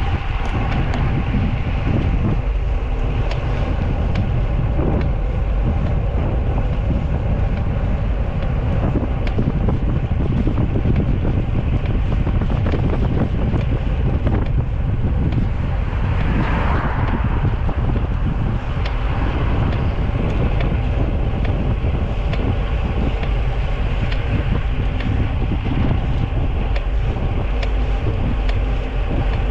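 Steady wind noise buffeting the microphone while cycling, a continuous rush heaviest in the low end. About halfway through a brief higher-pitched sound rises over it.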